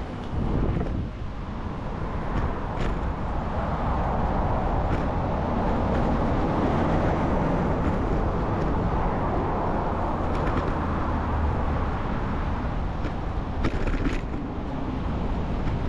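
Wind buffeting the microphone of a camera on a moving bicycle, a low rumbling noise, mixed with city road traffic. The traffic grows louder a few seconds in, and there are a few faint clicks.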